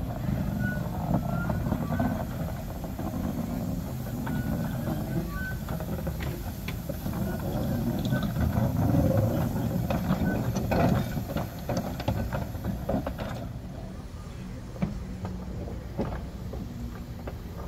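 Small narrow-gauge saddle-tank steam locomotive running slowly past on its track: a low rumble with irregular clanks and knocks from the wheels and motion, loudest about halfway through and easing off near the end.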